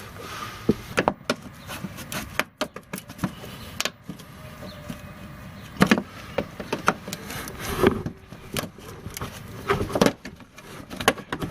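Scattered clicks and knocks of a plastic retaining clip and trim panel being worked loose by hand and tool, with a few sharper knocks spread irregularly through.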